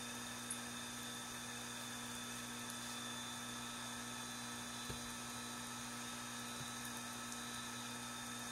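A steady hum made of several fixed tones over an even hiss, with a faint low thump about five seconds in.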